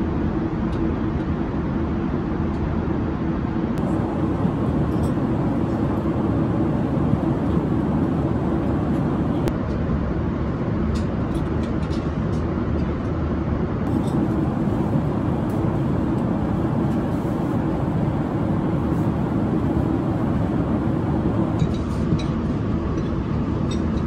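Steady cabin noise of a Boeing 787-9 airliner at cruise: a constant low rush of airflow and engine drone, with a few faint clicks in the middle and near the end.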